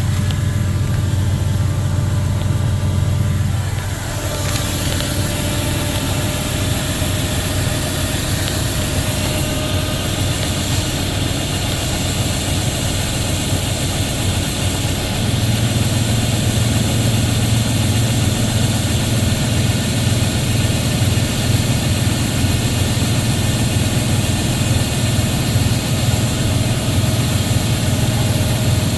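Harvest machinery, most likely a combine harvester, running steadily with a low engine hum. The deeper hum drops away about four seconds in and comes back louder about halfway through.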